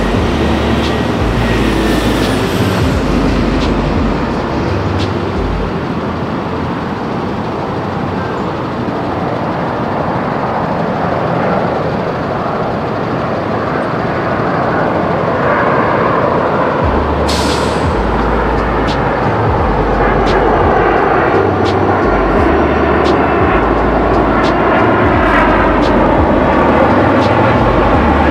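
Boeing 767-300F freighter's twin jet engines on landing approach, a broad roar that grows louder over the second half as the plane passes close overhead.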